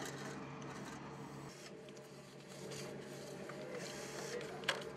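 Faint clicks and scrapes of a spanner working a brass compression fitting on a hot water tank's connection, over a steady low hum, with one sharper click near the end.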